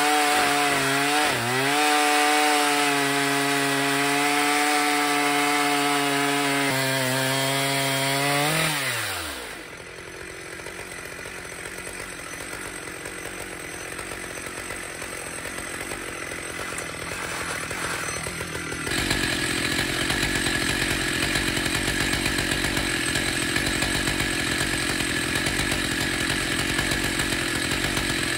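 Two-stroke Stihl MS 881 chainsaw in an Alaskan chainsaw mill running hard while ripping a slab off an oak log, its pitch dipping briefly under load. About a third of the way in the engine note falls away as the cut ends. About two-thirds in, a steady loud engine sound starts again.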